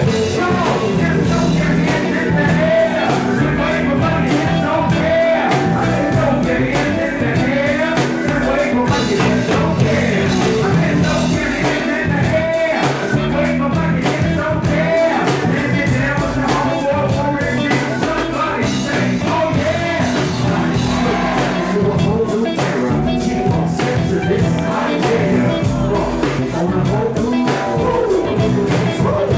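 Rock music with a singer: a band playing a song with vocals over it.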